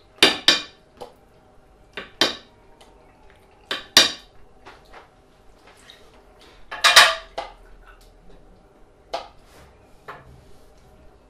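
A metal spoon clinking and scraping against a glass bowl and plates while dip is spooned out and served: a string of sharp separate clinks, with a denser run of knocks about seven seconds in.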